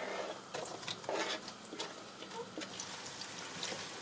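Thinly sliced onions going into hot vegetable oil in a pan over high heat and starting to fry. A few light knocks in the first second, then a sizzling hiss that grows louder.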